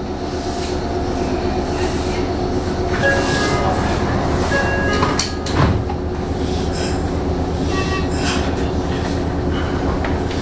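Meitetsu electric train heard from the driver's cab, its running gear and equipment giving a steady hum. A few short tones come around three to five seconds in, and a brief louder burst about five and a half seconds in.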